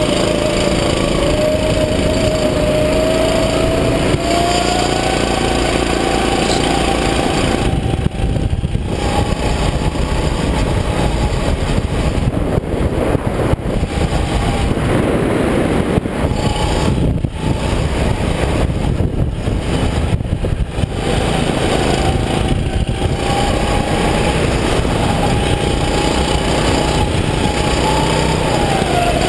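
Rental go-kart's engine running hard on track, heard up close from the kart itself. Its pitch rises and falls with the throttle and drops sharply near the end as the driver lifts off for a corner.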